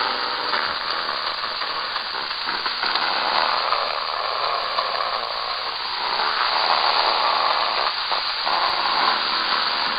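Shortwave radio static: a steady hiss on a weak AM signal, cut off above about 5 kHz, swelling and fading gently as the signal fades.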